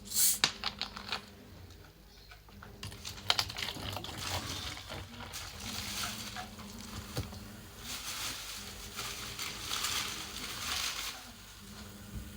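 Close-miked eating of a kota sandwich: chewing and mouth sounds, with small clicks and crinkles from handling the food, over a low steady hum.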